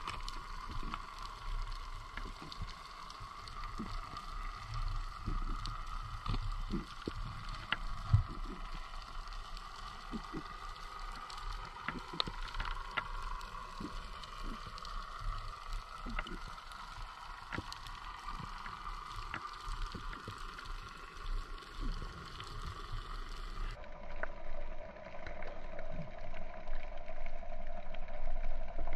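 Underwater ambience: a steady hum over a low rumble, with many scattered faint clicks and crackles. About three-quarters of the way through, the hum drops lower in pitch.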